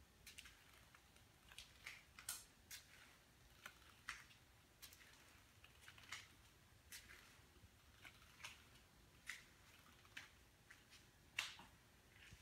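Near silence with faint, irregular sharp clicks, roughly one a second, the loudest about a second before the end.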